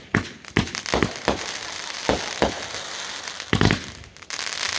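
Consumer firework going off: about a dozen sharp, irregularly spaced bangs, the loudest cluster about three and a half seconds in, with a steady crackling hiss between them.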